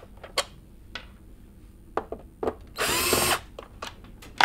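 Cordless drill-driver running briefly, a whirring run of under a second about three seconds in, as it backs out one of the screws holding a vacuum cleaner's sole plate. A few light clicks come before and after it.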